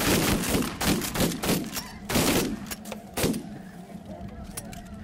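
A rapid, overlapping volley of shotgun fire from several hunters shooting into a flock of snow geese, tapering off after about three seconds with a couple of last loud shots. Snow geese go on calling in the quieter end.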